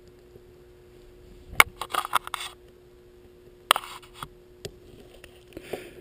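Small sharp clicks and scrapes of a metal pick working the plastic terminal clip of a mid-90s Nissan ECU connector: a quick run of clicks around two seconds in, one sharp click a little before four seconds, and a few fainter ticks near the end. A faint steady hum lies underneath.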